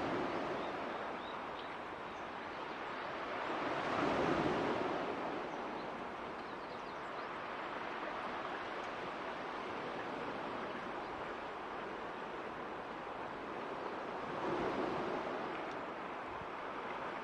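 Steady outdoor rushing noise with no distinct calls or clicks, swelling briefly about four seconds in and again near the end.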